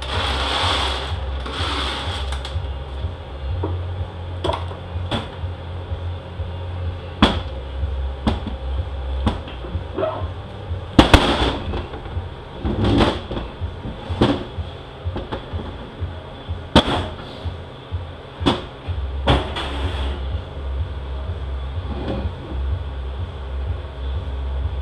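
Irregular metal clinks and knocks, a dozen or more, as bolts are handled and a 68RFE transmission's aluminium case is moved about and set down on a metal workbench. The loudest knocks come about eleven seconds in, over a steady low hum.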